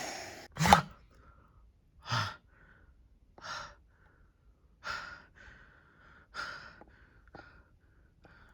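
A man gives one sharp gasp, then breathes hard in a run of heavy breaths about a second and a half apart.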